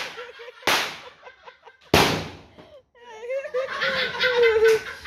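Two sharp firecracker bangs, one under a second in and another about two seconds in, each trailing off briefly. After them, people talk and laugh.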